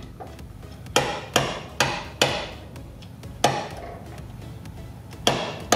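Irregular sharp metallic clinks, about eight of them, some coming in quick succession: tool and bolt knocking against the engine's water pump as the last pump bolt is taken out.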